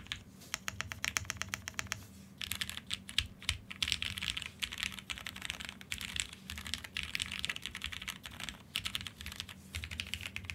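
Keystrokes on a Wind Studio Wind65 custom 65% mechanical keyboard: an even run of quick single key presses for about two seconds, then fast continuous typing with a few short pauses.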